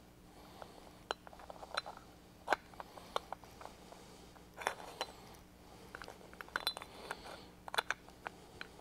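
Small metal parts of a Central Pneumatic 1/2 in. air impact wrench clicking and clinking as its air motor cylinder and rotor are fitted back into the housing by hand. The clicks are light and irregular, coming in small clusters.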